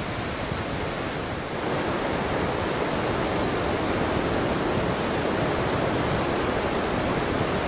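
Steady rush of low surf on a sandy beach, mixed with wind on the microphone; it grows a little louder about a second and a half in.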